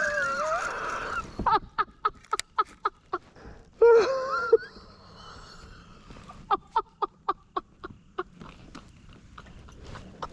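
Waterfowl calling, with two loud honk-like calls, one at the start and one about four seconds in. Between and after them come runs of short, sharp clicks, about four a second.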